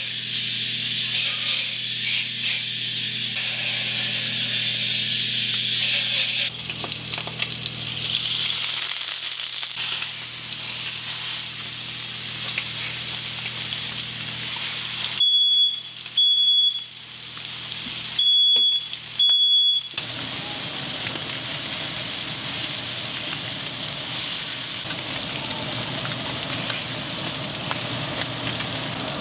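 Sheepshead fillets in blackening seasoning sizzling steadily as they fry in a hot skillet. About halfway through come four short, loud, high-pitched electronic beeps in two pairs.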